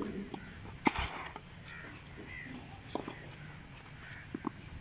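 Tennis racket striking the ball in a baseline rally: a sharp pop about a second in, then fainter hits and bounces near three seconds and twice near the end.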